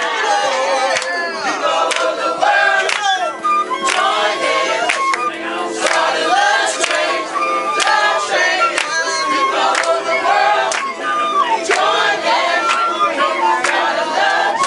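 A group of people singing together, backed by an electronic keyboard and a flute. Sharp hand claps sound throughout.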